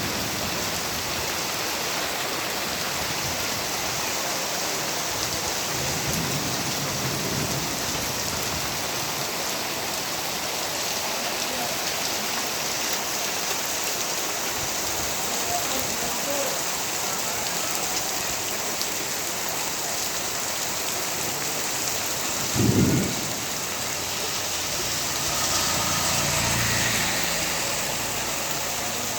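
Torrential rain pouring down in a steady hiss during a nor'wester storm. About three-quarters of the way in there is a brief loud low thud, and a few seconds later a low rumble swells and fades.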